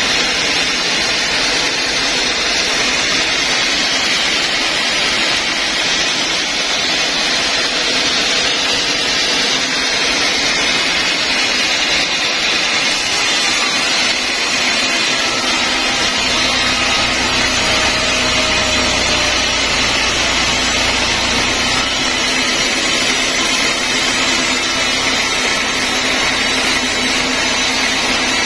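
Band sawmill running and cutting lengthwise through a large log: a steady, loud rush of the saw blade in the wood over the machine's running motor. A low hum grows stronger about halfway through.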